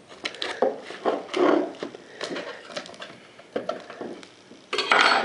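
Knife blade clicking and scraping against a hard clear-plastic packaging case, in irregular taps and scrapes. A louder scratchy scrape comes near the end.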